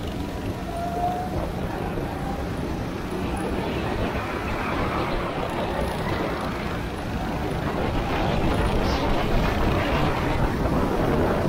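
Go-kart engine running, louder in the last few seconds.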